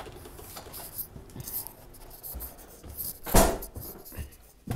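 Phone microphone rubbing and knocking against a fleece-lined jacket, with scattered clicks and one loud, short burst of noise about three and a half seconds in.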